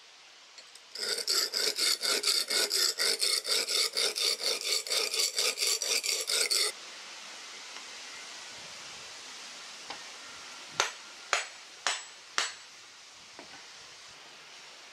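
Hatchet blade rubbed back and forth on a coarse sharpening stone, an even run of about four strokes a second for some six seconds. A few seconds later come four sharp knocks.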